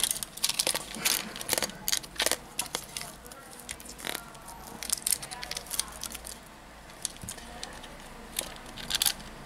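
Irregular small clicks, taps and light scrapes of a Xiaomi Redmi S2's metal mid-frame and flex cables being handled by hand while a cable connector is worked loose.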